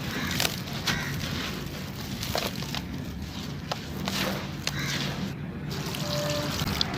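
Dry, gritty chunks being crushed, giving irregular sharp cracks and crunches over a steady crumbling grit.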